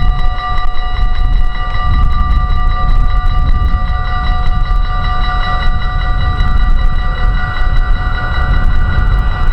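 Train running with a steady high-pitched whine, under heavy wind buffeting on the microphone.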